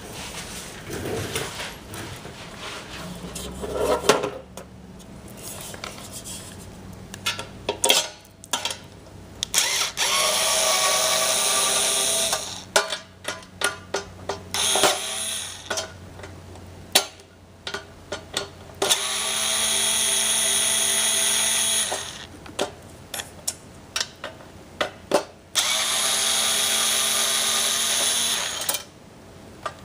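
Handheld electric power tool running in three steady bursts of about three seconds each, with sharp clicks and clatter of handling between the runs.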